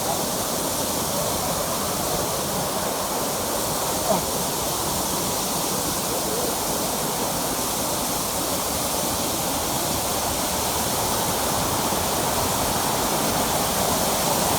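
Waterfall rushing: a steady wash of falling water that grows slightly louder near the end, with one short tap about four seconds in.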